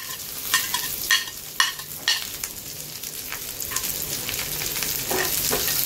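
Onions sizzling in hot oil in a frying pan, with a utensil knocking against the pan about twice a second in the first two seconds as it is stirred. The sizzle then grows steadily louder.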